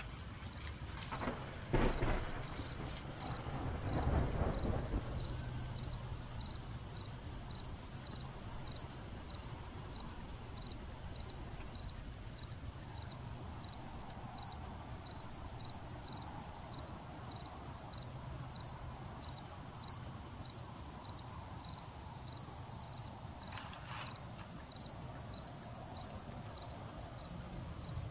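Crickets chirping at night: one cricket chirps evenly, a little under two chirps a second, over a continuous high insect trill. A low knock about two seconds in and a low rumbling thud about four seconds in stand out above it.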